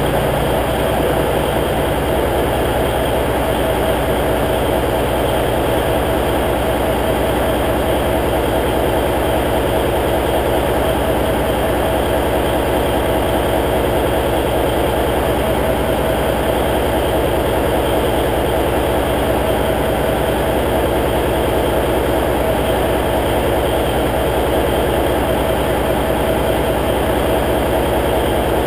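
Cummins N14 inline-six diesel in a semi tractor idling steadily, warming up after a cold start in near-freezing weather, with a steady high whine running over the engine note.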